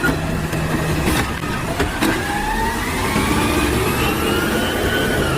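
A vehicle engine revving, its pitch climbing slowly from about two seconds in and dipping slightly near the end, over a steady rushing noise with a couple of sharp clicks early on.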